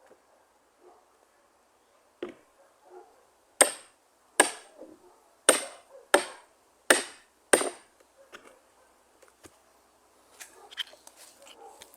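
An axe chopping wood: six sharp, evenly spaced strikes about two-thirds of a second apart, each with a brief metallic ring. Smaller ticks and rustles follow near the end.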